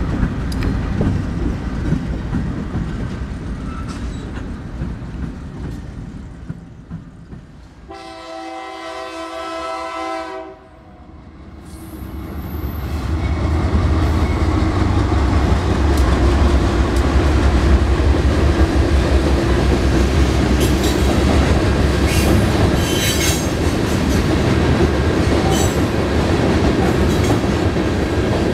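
Freight trains passing close. Diesel locomotives rumble by, then a locomotive horn blows a chord for about two seconds. After a sudden break, a BNSF freight's diesel locomotives and covered hopper cars pass with a loud low rumble, wheel clatter and some high wheel squeal.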